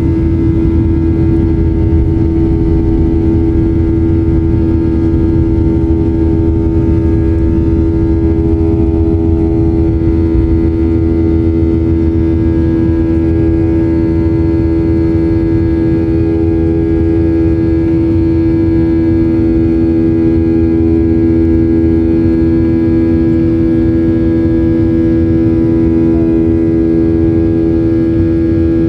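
Boeing 737-800's CFM56-7B jet engines at take-off thrust, heard from inside the cabin over the wing, as the aircraft leaves the runway and climbs out: a loud, steady drone with a strong humming tone over a low rumble. About two-thirds of the way in a second, lower tone joins.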